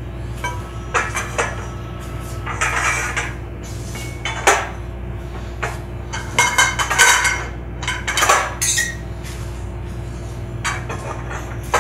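Aluminum raft-frame pipes clinking and clanking as they are handled and fitted into their tee joints: irregular clusters of metallic knocks, each with a short ring.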